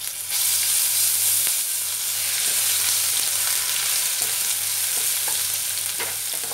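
Garlic paste frying in hot mustard oil with whole spices in a kadai: a steady high sizzle that jumps up just after the start and eases slightly after about two seconds, with light scrapes of a spatula stirring.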